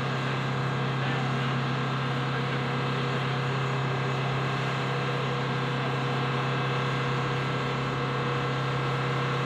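Steady drone of running aircraft turbine machinery: a strong low hum with a whine of several steady higher tones, holding even throughout with no change in pitch or level.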